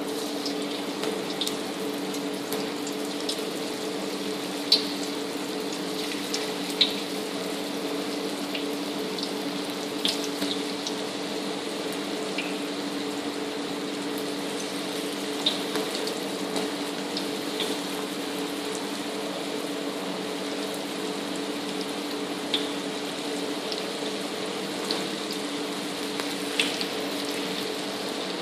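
Vegetable Manchurian balls deep-frying in hot oil in an iron wok: a steady sizzle with scattered sharp pops and crackles, over a steady low hum.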